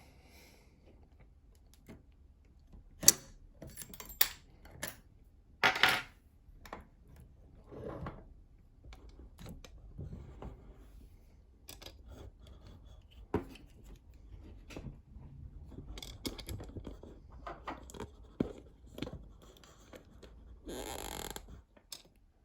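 Metal lock picks working the levers of a 10-lever NATO Mersey lever lock, making scattered light metallic clicks and scrapes with a few sharper clicks. Near the end comes a brief rush of noise.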